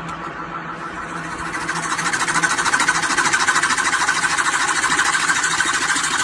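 Wood lathe spinning a large wooden blank while a turning tool cuts its end face: a fast, rattling scrape of the cut over the lathe's steady hum. The cut grows louder about two seconds in.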